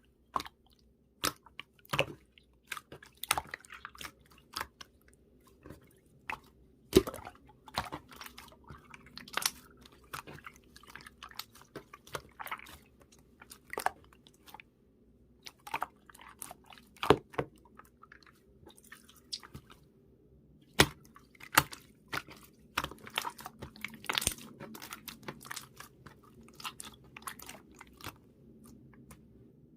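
Slime being squeezed and worked by hand, giving irregular sharp clicks and pops as air pockets burst, a few of them loud.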